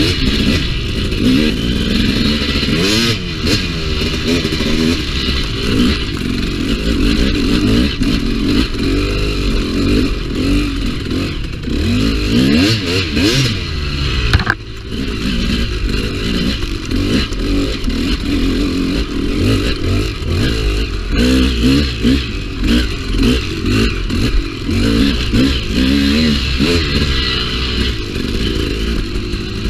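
Dirt bike engine revving up and down without a break as the bike is ridden over trail whoops, with clatter and scraping from the bike over the bumps. One sharp knock comes near the middle.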